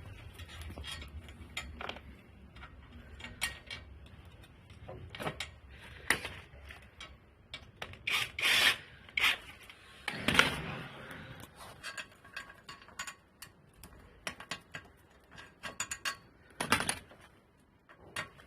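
Irregular clicks, knocks and scrapes of hand work on furniture parts and hardware, with a louder cluster of knocks in the middle and a faint low hum in the first few seconds.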